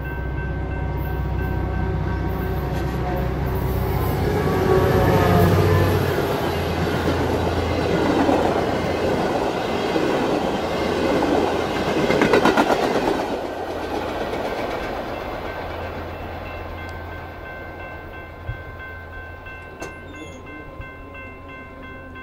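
Two GE P42DC diesel locomotives passing at speed, their engines loudest about five seconds in. The passenger cars follow, with wheels clattering over rail joints about twelve seconds in, then the sound fades as the train draws away. A level-crossing electronic bell rings steadily throughout.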